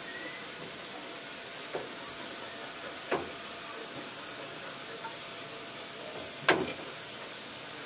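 A dog moving about inside a wire cage: a few sharp knocks, the loudest about six and a half seconds in, over a steady hiss.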